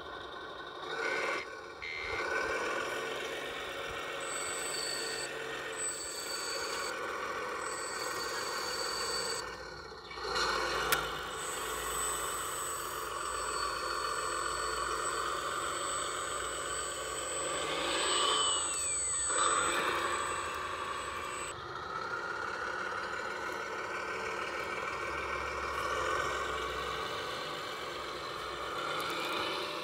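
Radio-controlled model truck running, its sound unit playing truck engine noise with intermittent high reversing beeps. About eighteen seconds in, a motor whine rises and falls.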